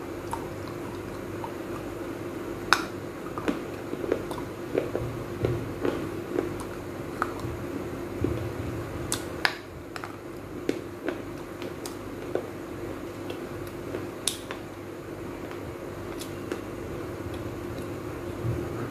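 Crunching and chewing of tiny unglazed baked-clay pots: irregular sharp cracks as pieces are bitten and ground between the teeth, the loudest about 3, 9 and 14 seconds in. A faint steady hum sits underneath.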